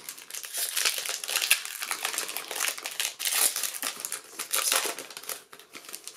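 Foil wrapper of a Magic: The Gathering booster pack crinkling and crackling in the hands as the stack of cards is slid out of it, easing off near the end.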